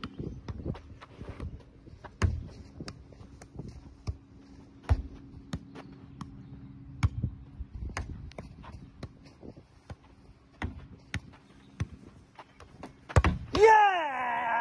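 Football kicked and bouncing off a teqball table during a rally: sharp, irregular knocks every second or two. Near the end a man lets out a loud shout that falls and then rises in pitch.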